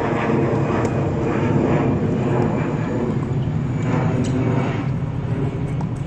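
A loud, steady low engine drone. A tennis racket strikes the ball about four seconds in.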